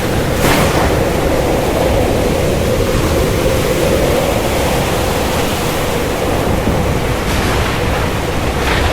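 Strong wind blowing hard against the microphone: a loud, steady rush of wind noise, with a few sharper gusts, about half a second in and near the end.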